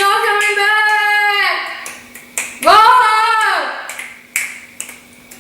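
A young man's voice giving two long, drawn-out shouts, the first about two seconds long and the second about a second, over a faint steady hum.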